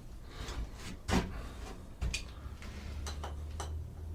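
Scattered clicks and knocks of hinge hardware, screws and wood boards being handled and positioned, with a louder knock about a second in and another about two seconds in. A low steady hum comes in near the end.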